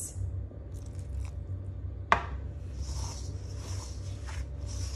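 Hands mixing flour, melted butter and water into samosa dough in a bowl: soft rubbing and squishing, with one sharp click about two seconds in. A steady low hum runs underneath.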